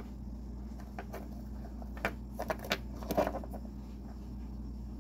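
A few light clicks and knocks of small pieces being handled, bunched between about one and three and a half seconds in, over a steady low hum.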